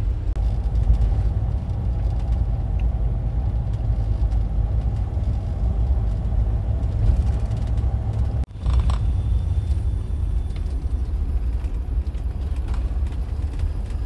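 Steady low rumble of road and engine noise inside a camper van's cab while driving. It drops out for an instant about eight and a half seconds in, then carries on unchanged.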